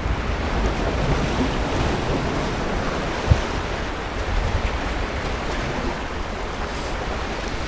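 Sea surf washing steadily onto a beach, with wind rumbling on the microphone and a brief low thump about three seconds in.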